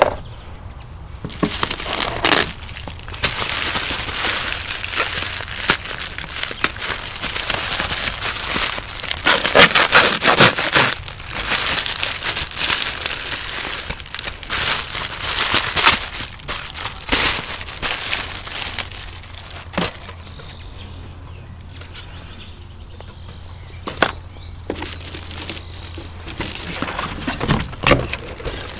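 Packaging being handled: plastic wrapping and cardboard crinkling and rustling, with scattered knocks, busiest in the first half and quieter later on.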